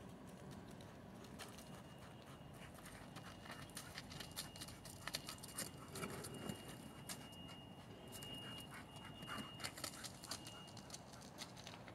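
Faint, scattered crunching and clicking of steps on gravel and broken concrete rubble, with a faint steady high tone through the middle.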